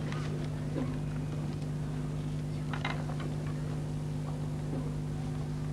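Steady low electrical hum over hiss, with a few faint, brief sounds about a second and about three seconds in.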